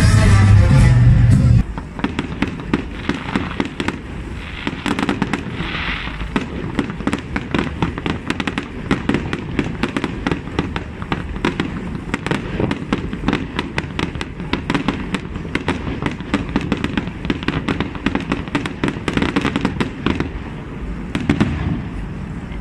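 Aerial fireworks going off, a long run of sharp pops and crackles coming many to the second. Loud live concert music plays for the first second or two and cuts off abruptly.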